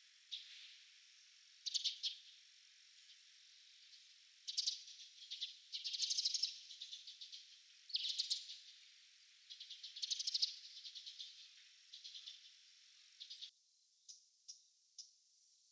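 Wild bird calling: repeated bursts of chattering, rattling calls, followed near the end by a few short, sharp tick calls.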